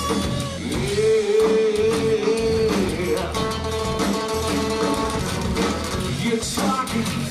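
Live rock band playing: guitar and drums, with a long wavering held note about a second in.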